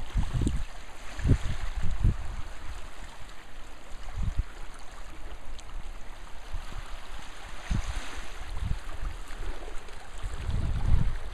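Small waves lapping and trickling among rocks at the water's edge, with wind buffeting the microphone in low rumbling gusts, heaviest near the end.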